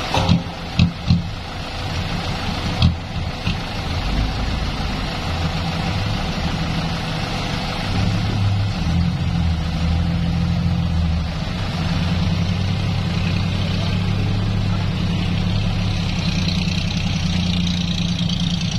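Loaded dump truck's diesel engine running as the truck manoeuvres and reverses, its drone growing louder about four seconds in. A few sharp knocks sound in the first few seconds.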